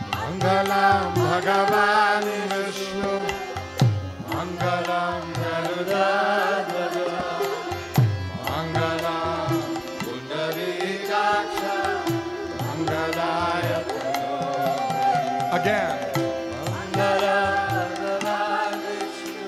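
Devotional kirtan music: voices singing a mantra in long phrases over a harmonium's held tones, with a two-headed barrel drum and a bamboo flute.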